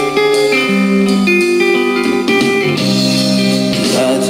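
Guitar-led song with sustained chords, playing from a SOL Republic Punk portable Bluetooth speaker during a listening test of its sound.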